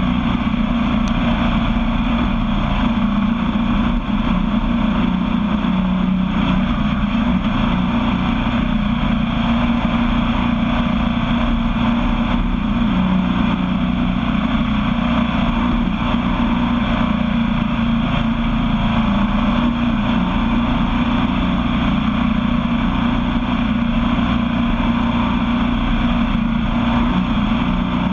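Sandrail engine running steadily at a constant cruising speed, with steady noise of tyres on a dirt track.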